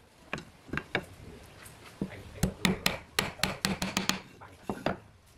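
Claw hammer driving nails into a softwood strip. A few scattered taps come first, then from about halfway a quick run of hammer blows, about four a second.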